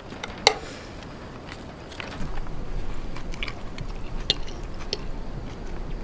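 Forks clinking against dinner plates three times, sharp with a short ring, among faint chewing. From about two seconds in, a low rumble comes up underneath.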